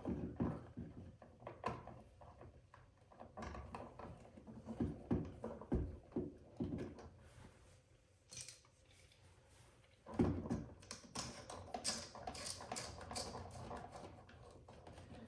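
Handling noises as wires are worked onto a light switch by hand: scattered clicks, taps and scrapes of copper wire, wire nuts and the switch body. The noises go quiet for a couple of seconds past the middle, then about two-thirds of the way through pick up as a quick run of small scratchy clicks.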